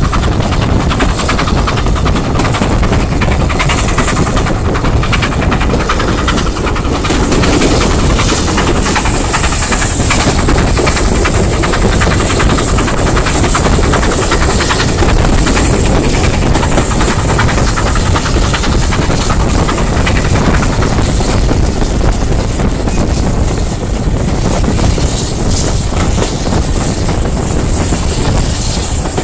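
Heritage train running along the line, heard from an open carriage window: the carriages rolling on the rails under a steady rush of wind and running noise.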